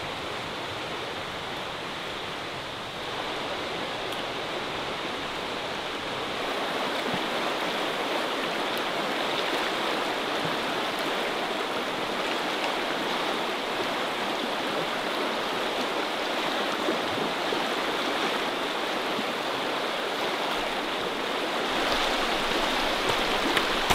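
Steady rushing of a fast, shallow river running over stones, growing a little louder after the first few seconds.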